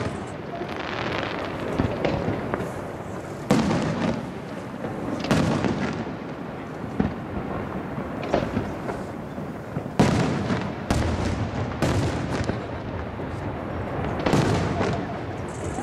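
Aerial firework shells bursting, a run of sharp booms at uneven intervals, each trailing off into a long rolling echo off the surrounding hills. The loudest bang comes about ten seconds in.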